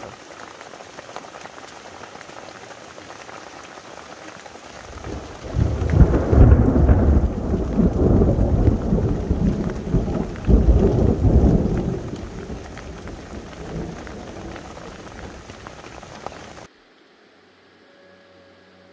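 Close thunder over steady rain: a deep rumble builds about five seconds in, stays loud for several seconds, then fades away. Near the end the sound cuts off abruptly, leaving only a faint low hum.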